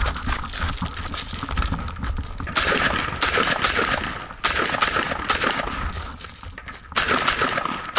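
Footsteps crunching on gravel, then a rifle firing a quick string of single shots at steel targets, a few shots to the second, with a short pause before a last few shots near the end.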